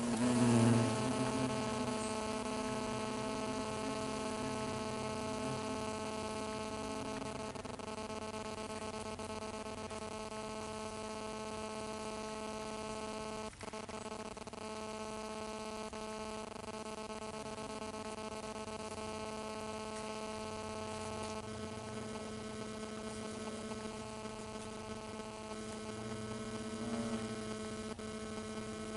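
European hornets buzzing at their nest: a steady, even hum, louder in the first second or two as a hornet flies close.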